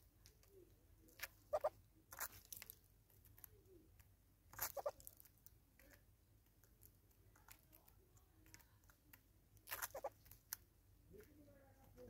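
Red-billed hornbills pecking at a pile of seed and grain on a tree stump: their bills click and crunch in four short clusters a few seconds apart.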